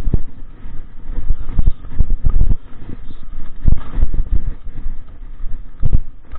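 Mountain bike jolting down a rough dirt trail, heard through the shaking camera mount: irregular low thumps and rattles from the bumps, with wind buffeting the microphone.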